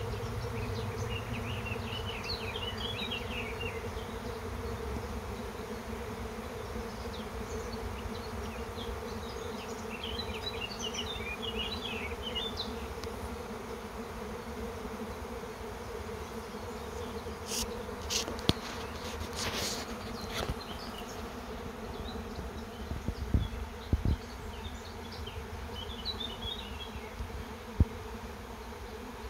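A honeybee colony swarming: thousands of bees in flight make a steady, dense buzzing hum as the colony leaves the hive. A few sharp clicks and knocks stand out in the second half.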